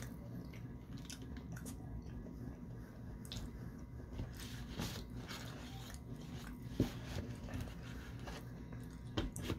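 Close-up eating sounds: chewing mouthfuls of apple pie with cream, with a few sharp clicks of a spoon against the dish, the loudest about 7 seconds in and another near the end, over a low steady hum.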